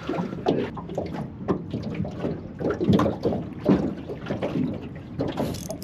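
Small waves lapping and slapping irregularly against the side of a small aluminum boat, with some wind noise.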